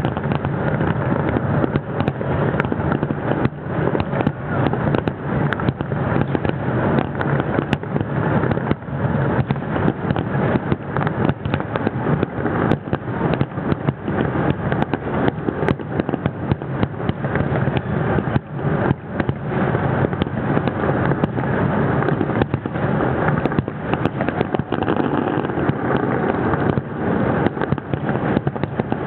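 Fireworks finale barrage: many aerial shells bursting in quick succession without a break, their bangs running together over a continuous rumble and crackle.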